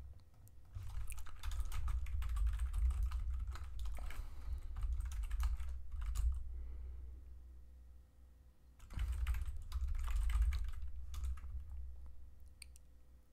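Fast typing on a computer keyboard in two long runs, the first starting about a second in and the second from about nine seconds, each with a deep rumble under the key clicks.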